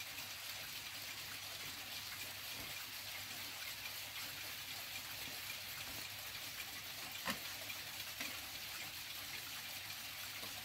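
Steady background hiss with faint scattered clicks, and a sharper click about seven seconds in, from the minute hand of a 1950s Westminster mantel clock being turned round by hand.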